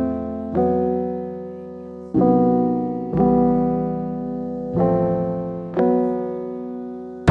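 Background piano music: slow sustained chords struck about five times, each left to ring and fade.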